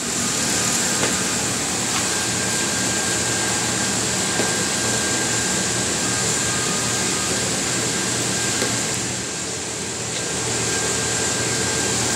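Industrial air blower running with a steady rushing hum and a faint high whine, easing off a little about nine seconds in, with a few light clicks of parts being handled.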